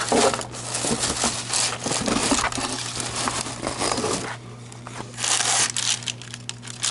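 Paper packing stuffing crinkling and rustling as a new camera case is opened and emptied by hand, in irregular bursts: busy for about four seconds, then a quieter spell and another short burst near the end. A steady low hum runs underneath.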